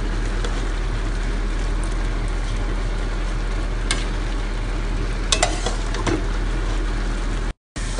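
Rice simmering in boiling mung-bean broth in a pot: a steady bubbling hiss, with a few light clicks of a utensil against the pot. The sound breaks off for a moment near the end.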